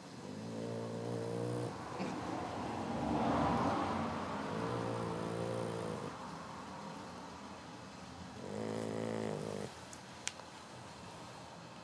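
Boxer puppy snoring in its sleep: three buzzing snores a few seconds apart, with a louder breathy rush of air between the first two. There is a short faint click near the end.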